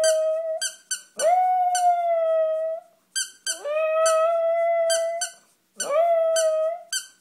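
Small dog howling in a run of long notes, each rising at the start and then held steady, with short breaks between them. A plush squeaky toy is squeezed again and again, its short high squeaks often coming in quick pairs between and over the howls.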